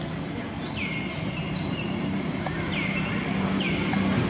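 Short high calls, each dropping quickly in pitch and then levelling off, repeated about once a second over a steady low hum.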